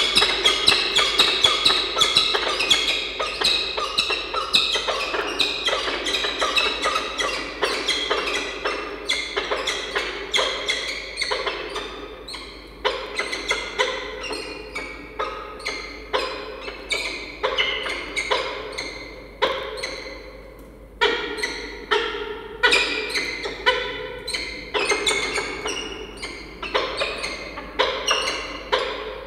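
Peregrine falcons calling during a bonding display: a long run of short, sharp, repeated chupping notes, several a second, uneven in loudness.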